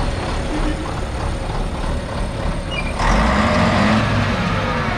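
A 1987 Volvo F12's 12-litre six-cylinder diesel engine running as the tractor unit drives past close by. About three seconds in, the sound grows suddenly louder with a rush, then its pitch falls away.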